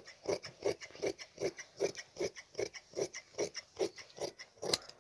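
Large tailor's shears snipping through checked trouser fabric, one cut after another at about two to three strokes a second.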